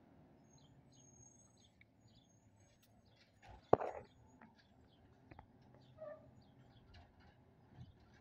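Birds chirping repeatedly over the faint, steady low hum of an approaching recycling truck's engine, with one sharp, loud knock a little under four seconds in.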